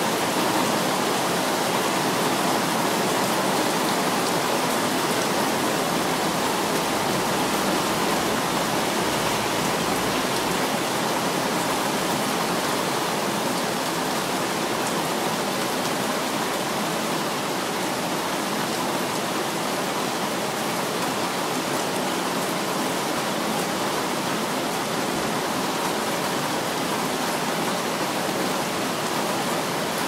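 Steady rain falling: an even, unbroken hiss with no thunder.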